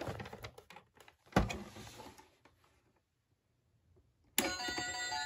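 A few clicks and a sharp knock about a second and a half in, then quiet; about four seconds in, the Gemmy Happy Wisdom Fish singing fish toy starts playing its tinny electronic song.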